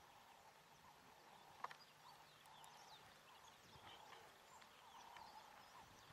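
Quiet outdoor ambience: the faint hoofbeats of a horse trotting on a sand arena, with scattered bird chirps and a single sharp click about a second and a half in.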